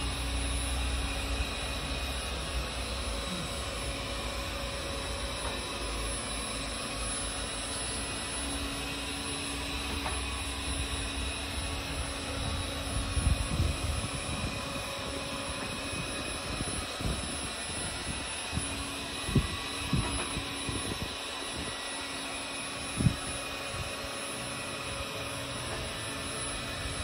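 Hobot window-cleaning robot's suction fan running steadily with a constant whine as the robot crawls over the glass. A few short low thumps come in the second half.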